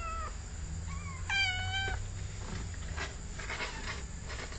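A domestic cat meowing: a short meow at the start, a faint chirp about a second in, then a longer, louder meow about a second and a half in that falls slightly in pitch.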